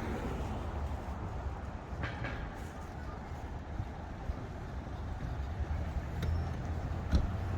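Steady low rumble of city street ambience, likely traffic, with a few faint clicks.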